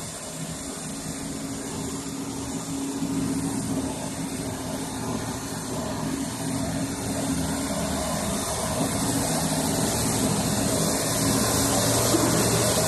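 BinBao SLA-series slitter rewinder running on unbleached kraft paper: a steady mechanical hum with a hiss over it, slowly growing louder.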